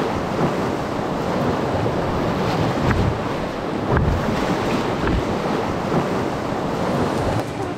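Whitewater of a small river rapid rushing and splashing steadily past a canoe, with wind buffeting the microphone.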